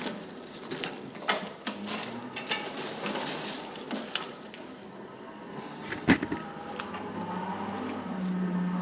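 Scattered light metal clinks and knocks as a small metal hood and coal are set over a freshly lit coal forge fire, with one sharper knock about six seconds in. A low steady hum starts near the end.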